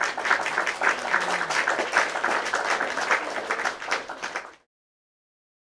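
Crowd applause: many hands clapping in a dense, steady patter that cuts off abruptly about four and a half seconds in.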